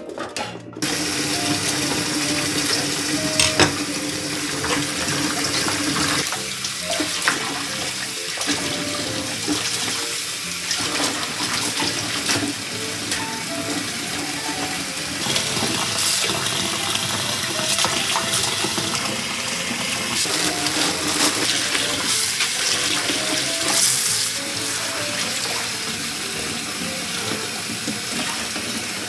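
Tap water running steadily into a kitchen sink, with a few light clinks of dishes.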